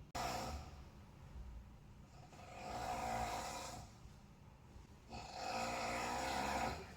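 Very loud snoring from a sleeping person: a short snort right at the start, then two long snores about two and a half seconds apart, each lasting about a second and a half.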